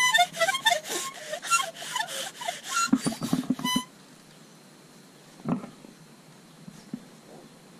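A small harmonica played by a young child: quick, uneven blown and drawn notes that change every fraction of a second, stopping a little under four seconds in. After that it is quiet apart from one short sound about a second and a half later.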